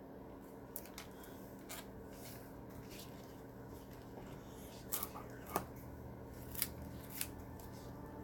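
Hand scissors snipping: about eight sharp separate snips at irregular intervals, several close together in the second half.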